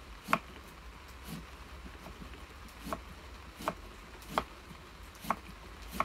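Kitchen knife cutting thin slices into a peeled raw sweet potato for Hasselback potatoes, each cut ending in a sharp knock as the blade comes down on the wooden spoon handles laid either side as depth stops. About six knocks, less than a second apart.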